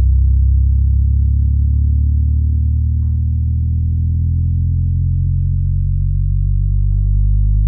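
Bass-heavy music played through a portable Bluetooth speaker: long, deep bass notes with almost nothing in the high end.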